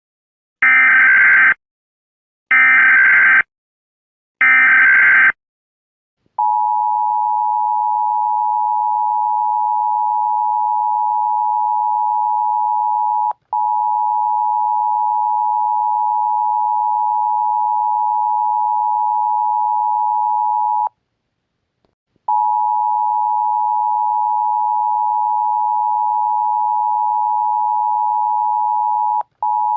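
Emergency Alert System tones. Three short bursts of SAME header data, each under a second with gaps between, are followed by the EAS two-tone attention signal, a steady dual tone (853 and 960 Hz) held for over twenty seconds. The attention signal drops out briefly twice and once for about a second and a half.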